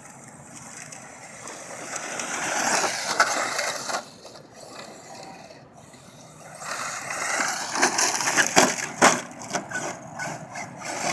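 Electric Traxxas Slash 4x4 radio-controlled short-course truck driving on loose dirt, with motor whine and tyres grinding on the ground. It swells twice as the truck runs close, about two seconds in and again from about six seconds. During the second pass there is a spell of gravel clatter and knocks.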